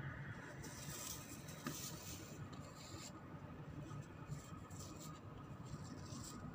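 Faint, irregular scratching and rustling as a freshly caught crab and its line or net are handled by hand, in two spells, over a low steady background hum.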